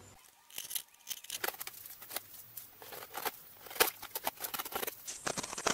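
Irregular crackling and scraping of a hand-held blade cutting the fiberglass-covered edge of an insulation-foam box, in short strokes.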